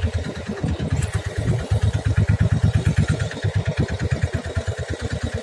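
Boat engine running with a fast, even, low chugging.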